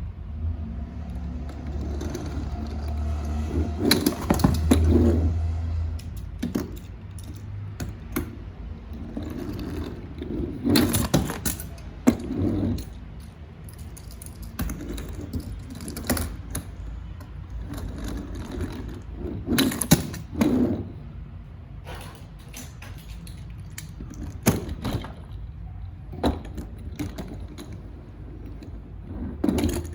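Diecast metal toy cars being handled: irregular clicks, clatter and scraping, with louder bursts of clatter every several seconds and a low rumble during the first six seconds.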